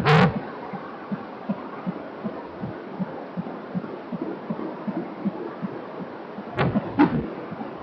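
Fetal heartbeat through a Doppler monitor: quick, regular pulsing at about two and a half beats a second over a steady hiss. Two brief louder scraping bursts break in, one at the very start and one near the end.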